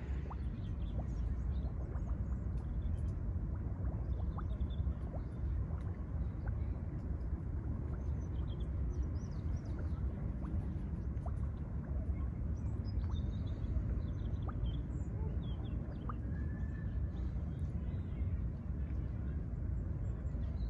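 Outdoor ambience: a steady low wind rumble on the microphone, with faint high chirps scattered through it that sound like small birds.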